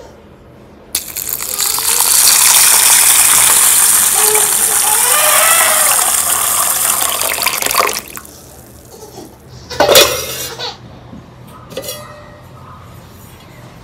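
Kitchen tap running water into a vessel in the sink for about seven seconds, then shut off abruptly. A sharp clink of kitchenware follows about two seconds later, with a lighter knock near the end.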